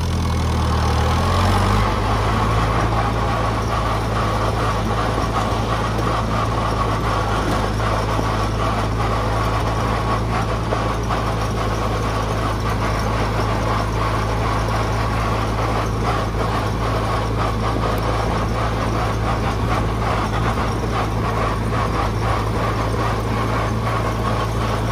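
1960 International Harvester Cub Lo-Boy's four-cylinder flathead engine running steadily as the tractor drives along in high gear. Its note shifts during the first couple of seconds after the change into high gear, then holds even.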